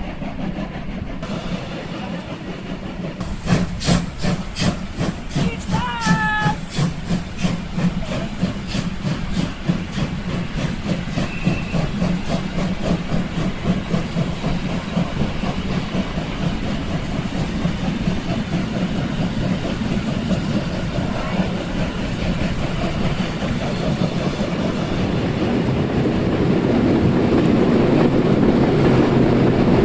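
Steam locomotive working, with steam hiss and a run of rhythmic beats from about three seconds in that come closer together, and a brief higher tone about six seconds in. The sound grows louder near the end as the train draws closer.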